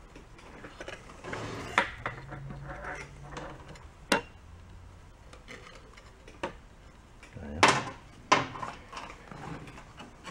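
Small metal parts clicking and clattering by hand as the governor linkage is unhooked and the carburetor and fuel tank are worked off an old small engine, with a few louder sharp knocks.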